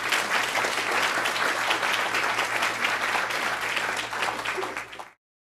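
Audience applauding, a dense clatter of many hands clapping at a steady level that cuts off abruptly near the end.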